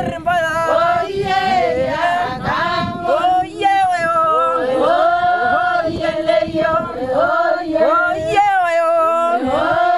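A group of men and women singing together, a chanted song whose melodic lines rise and fall throughout.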